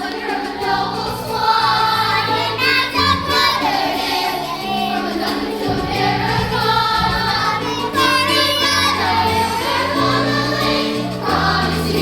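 A chorus of young voices sings a stage-musical number over instrumental accompaniment with held bass notes.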